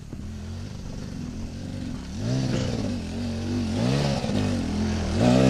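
Dirt bike engine running at low revs, then revving up and down in about three throttle bursts from some two seconds in, getting louder as it rides along the trail.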